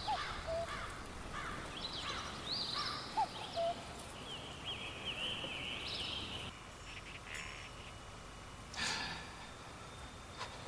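Wild birds chirping and calling, a busy run of short high chirps with a few lower two-note calls, over a faint outdoor hush. About two-thirds of the way through the birdsong stops and a quieter, still room tone follows, with one brief soft noise near the end.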